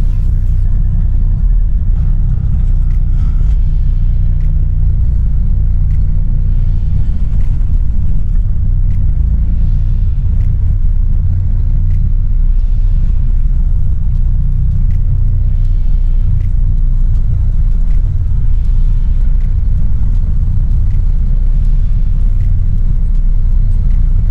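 Semi-truck's diesel engine running as a steady low rumble, heard from inside the cab while the truck rolls slowly, with occasional faint clicks and rattles.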